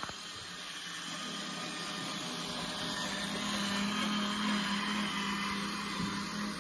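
Small electric motor and gearing of a homemade RC model tractor and baler running with a steady hum, a little louder about four seconds in.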